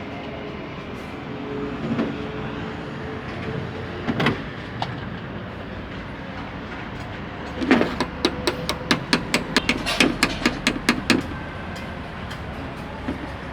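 A run of quick, sharp taps, about four a second for some three seconds, over a steady low hum, with a single knock a few seconds before. The taps come from hand-tool work during a carburettor repair.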